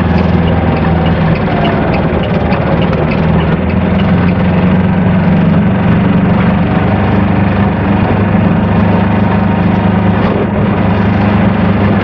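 Kubota two-cylinder diesel engine of an Aixam Mega Multitruck microcar van droning steadily under way, heard from inside the cab; the drone grows a little stronger about four seconds in.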